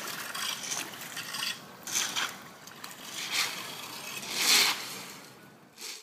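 Splashing and sloshing in shallow street floodwater as hands and rakes work through it and drag wet leaves, with scraping along the pavement. The water noise comes in uneven surges, the loudest about four and a half seconds in.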